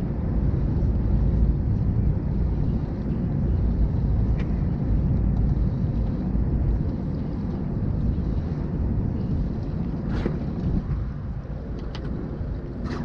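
Wind buffeting the microphone as a steady low rumble, with a few light knocks and clicks on the boat.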